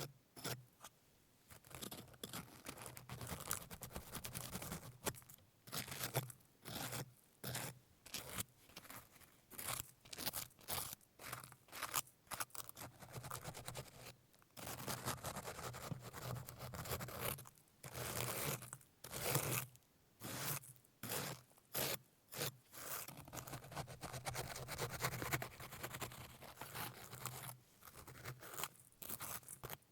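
A hard baked salt crust being broken and scraped away, in many short crunching, scraping strokes with a few longer scrapes along the way.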